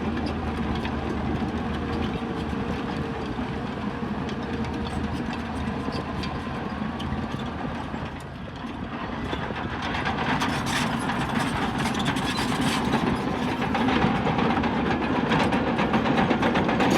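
Bulldozer's diesel engine running steadily, with knocking and clanking that grow louder from about ten seconds in, after a brief drop near eight seconds.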